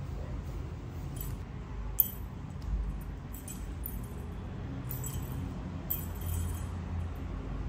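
Light, scattered jingling clinks and a sharp tap about two seconds in as kittens bat at a feather wand toy, over a steady low hum.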